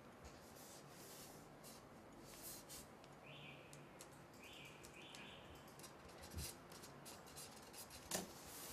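Faint clicking and scraping of a hex key turning a small screw into a gimbal clamp bracket, with a few short squeaks in the middle and a sharper click near the end.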